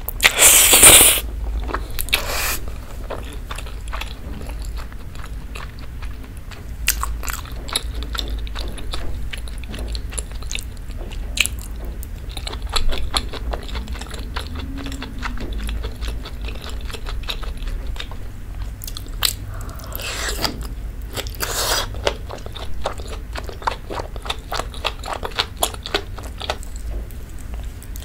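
Close-miked eating sounds: spaghetti in creamy rosé sauce slurped off a fork about a second in, then steady chewing with many small wet mouth clicks. There is another loud burst of slurping or sucking about two-thirds of the way through.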